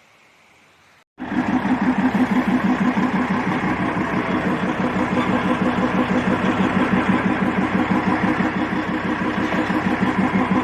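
An engine running steadily with a fast, even throb, starting abruptly about a second in.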